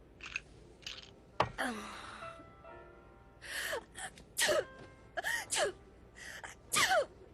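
A woman's voiced cartoon sneezing fit: sharp gasping inhales and several quick sneezes, each dropping in pitch, over faint background music.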